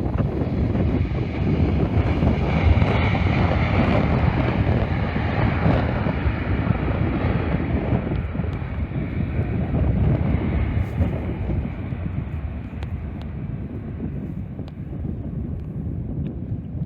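Jet airliner engines passing, a low rumble that swells in the first few seconds and slowly fades, under heavy wind noise on the microphone.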